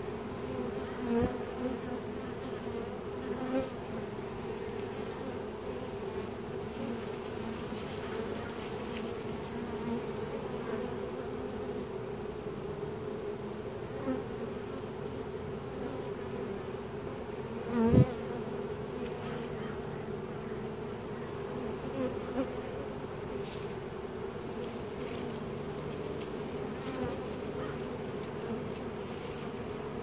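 Honeybee swarm humming steadily as the bees walk into a six-frame nuc box. A few brief louder swells rise over the hum, the loudest about two-thirds of the way through.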